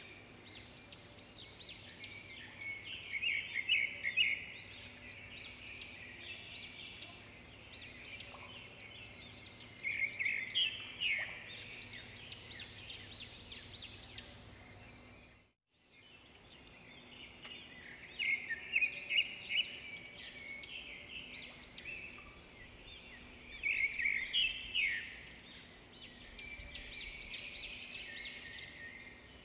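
Duckling peeping: runs of short, high-pitched peeps in bursts of several rapid calls, with quieter spells between them and a brief break about halfway.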